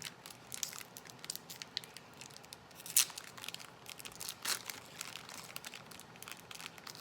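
Foil wrapper of a Pokémon booster pack crinkling and tearing as it is opened by hand: a run of dry crackles, loudest about three seconds in and again about four and a half seconds in.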